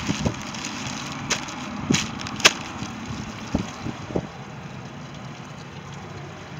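Mercury 90 HP outboard running steadily after a carburettor rebuild, with a few sharp clicks and knocks from handling in the first half.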